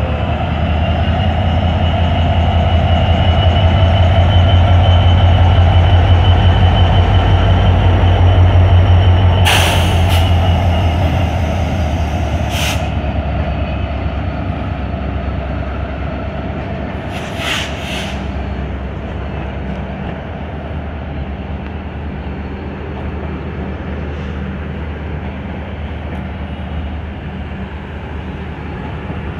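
EMD GT42ACL diesel-electric locomotive pulling away with a passenger train, its engine running with a steady drone, loudest in the first several seconds and then easing off as the coaches roll past. A few brief sharp noises cut in about ten and eighteen seconds in.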